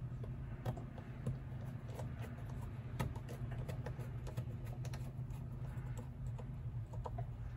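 Light, scattered clicks and taps of small screws and a screwdriver being handled while a folding knife is reassembled, a few taps a little sharper than the rest, over a steady low hum.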